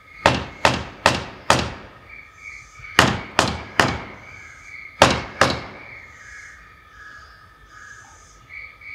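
Nine loud, sharp knocks in three groups (four in quick succession, then three, then two), each ringing on briefly, over a steady background chorus of frogs and crickets.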